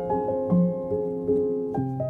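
Soft background piano music: single notes struck a little over twice a second over held chords, with a new low bass note entering near the end.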